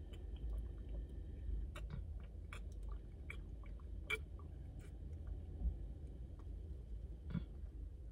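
Faint gulping and swallowing as a person drinks from a plastic sports-drink bottle, with scattered small clicks over a steady low hum.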